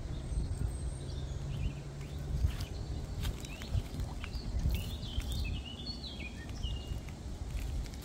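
Outdoor ambience with a low rumble of wind on the microphone; a small bird chirps a quick series of short notes about halfway through, among scattered light clicks.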